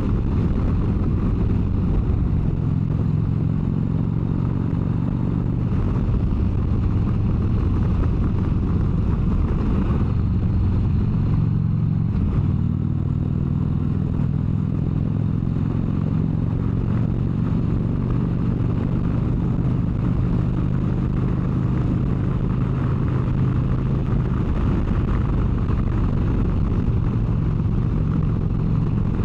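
Harley-Davidson V-twin motorcycle engine running steadily at highway cruising speed, its pitch dipping and shifting briefly about ten to twelve seconds in.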